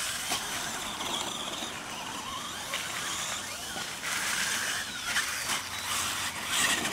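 Radio-controlled mega trucks racing on a dirt track: small motors whining, their pitch wavering with the throttle, over the scrabble of tyres on loose dirt, with a few short knocks.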